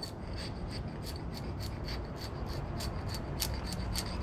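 Quick repeated hand strokes of a tool rubbing and scraping the old paint off the lathe's metal, about three strokes a second.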